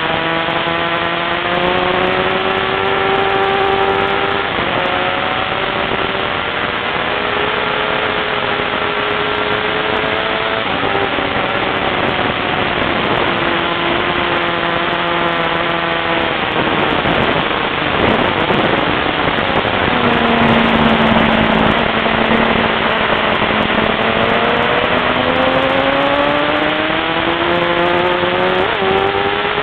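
Sport motorcycle engine heard from an onboard camera at track speed, its pitch rising and falling through gear changes and corners over heavy wind rush. About two-thirds of the way through there is a quick sweep in pitch, then the engine pulls up steadily from low revs.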